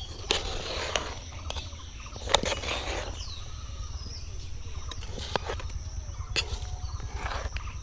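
Metal ladle scraping and knocking against a large metal cooking pot as cooked rice is stirred and scooped, with several sharp clinks, the loudest about two and a half seconds in.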